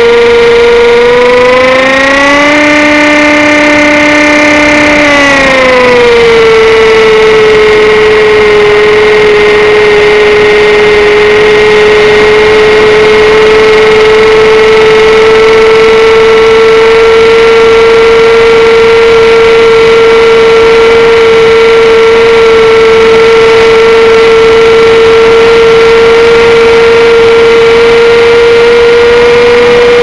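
Electric motor and propeller of an XUAV Skysurfer RC plane whining in flight, heard through the onboard camera's microphone. The pitch rises about a second in, holds for a few seconds, drops back around six seconds in, then creeps slowly up again, over a steady hiss.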